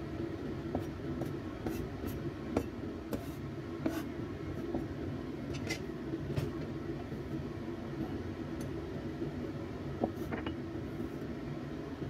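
A few scattered clicks and scrapes of a cleaver and fingers gathering minced garlic on a wooden chopping board and scraping it off the blade into a bowl, over a steady low background rumble.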